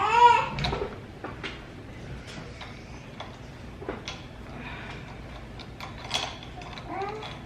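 A cat meowing at the start, the loudest sound, followed by scattered small clicks and rattles of ring light tripod parts being handled and fitted together. A shorter meow comes near the end.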